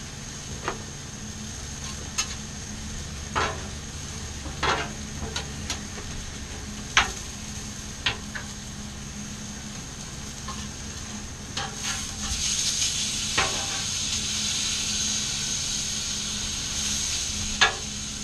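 Metal spatulas scraping and clicking on a Blackstone flat-top griddle, over a steady sizzle of food frying on the hot plate. The sizzle grows louder about twelve seconds in.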